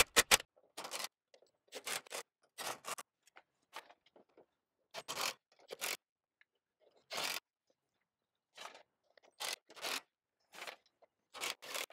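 A cordless impact driver finishes hammering a gutter hanger screw home and stops about half a second in. A string of short scraping and rustling noises follows, a dozen or so at uneven intervals.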